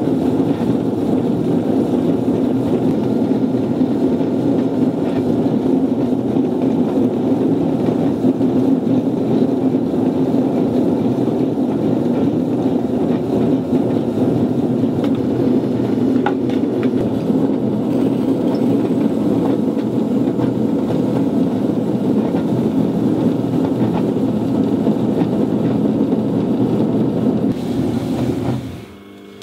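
Electric potter's wheel spinning with a steady low rumble, which cuts off shortly before the end.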